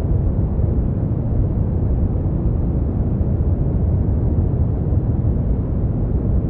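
Brown noise: a steady, deep rushing hiss, loudest in the bass and fading away toward the treble, with no changes.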